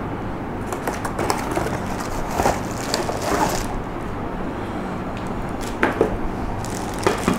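Rustling and scattered light knocks from a camera tripod and its packaging being handled and unwrapped, with a sharper click about six seconds in, over a steady low hum.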